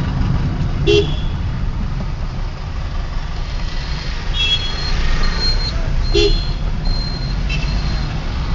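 Steady low engine and road rumble of a vehicle driving across a bridge, with short horn toots about a second in and again about six seconds in.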